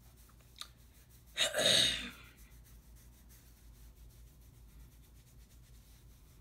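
One short, loud burst of breath noise from a person about a second and a half in. Around it, faint rustling of fingertips working through short, coily hair.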